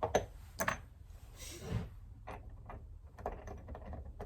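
Small metal vise parts and bolts clicking and clinking as they are handled and fitted together by hand, with a short scraping slide about a second and a half in.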